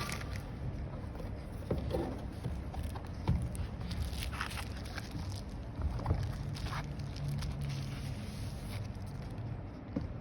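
Handling noise from unboxing: scattered light clicks and scrapes of packaging and the part being handled, over a steady low rumble.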